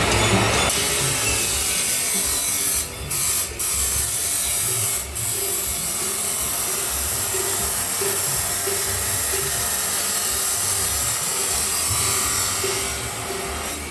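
Angle grinder cutting through stainless steel pipe: a steady, loud, high hiss of the disc in the metal, broken by three brief dips a few seconds in and easing off near the end.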